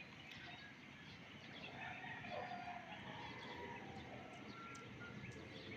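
Faint outdoor background haze with scattered short, distant bird chirps.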